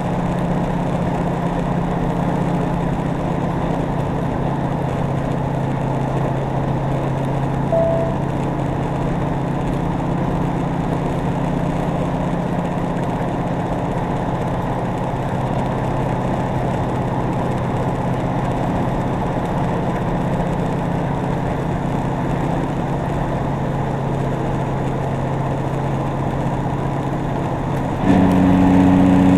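Cummins N14 inline-six diesel of a Peterbilt 379 truck running steadily under way. Near the end the engine note jumps suddenly louder and higher.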